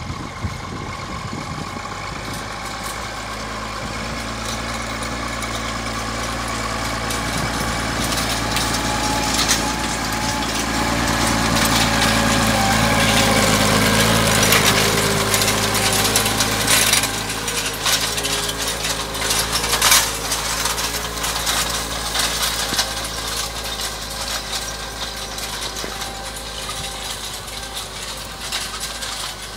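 Massey Ferguson 2620 tractor's diesel engine running steadily under load while pulling a 3 m seedbed cultivator through ploughed soil, with clattering from the cultivator. It grows louder as the tractor comes close about halfway through, then fades as it pulls away.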